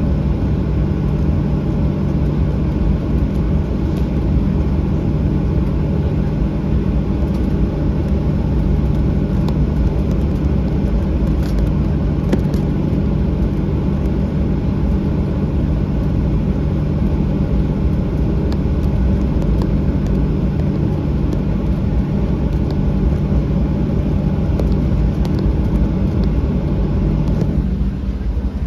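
Cabin noise of a Boeing 737-800 taxiing: its CFM56 engines running at idle with a steady low hum over the rumble of the aircraft rolling along the taxiway. Near the end the sound turns duller.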